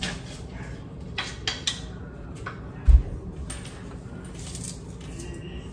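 Kitchen handling clatter: a few light clicks and knocks of utensils and a wooden cutting board on the counter, and one heavy thump about three seconds in.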